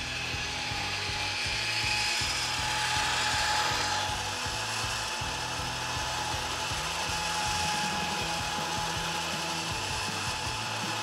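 Smittybilt Gen2 X2O 10,000 lb electric winch running steadily, its motor and planetary gear train whining as it reels the synthetic rope in onto the drum.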